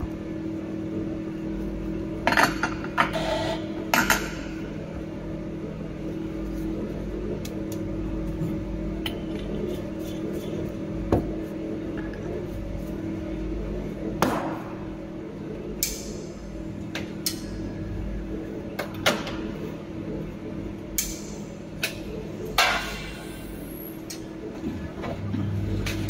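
Scattered short knocks and clanks of metal espresso gear, a portafilter and machine parts, being handled at an espresso machine, over a steady low hum.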